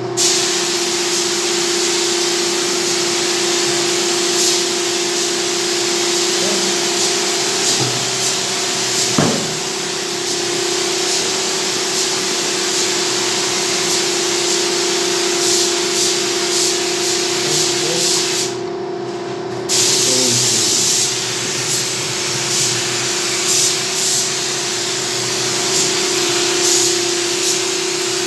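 Gravity-feed air spray gun hissing steadily as it sprays wood finish, with a steady hum underneath. The spray cuts out for about a second about two-thirds of the way through, then resumes.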